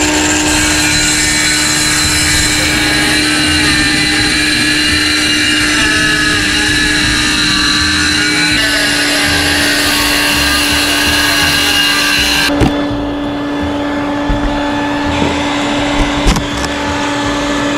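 Ryobi cordless circular saw cutting through an RV roof's rubber membrane and OSB plywood decking, with a shop vacuum running alongside to catch the sawdust. The saw stops about twelve seconds in, leaving the steady vacuum and a few knocks.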